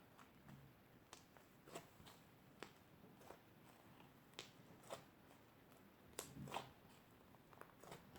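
Red clay slime being squeezed and pressed by hand, giving faint, irregular sticky clicks and small pops about once or twice a second, with a louder cluster about six seconds in.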